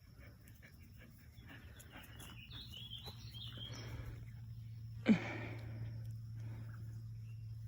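A dog gives a single short bark about five seconds in, falling quickly in pitch, over faint outdoor sounds.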